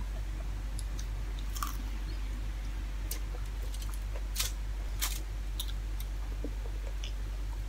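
Close eating sounds: a person chewing a mouthful of rice and fried fish with wet mouth clicks, while bare fingers gather rice on aluminium foil, making a few sharp clicks and crinkles. A steady low hum runs underneath.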